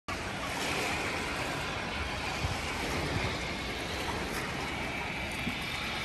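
Steady outdoor noise of small waves washing at the edge of a surf lagoon, with wind gusting on the microphone as an uneven low rumble.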